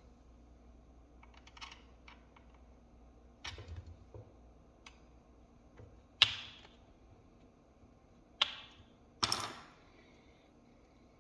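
Irregular clicks and clacks from handling a laptop and its parts, about eight in all, the sharpest about six seconds in and two more near the end.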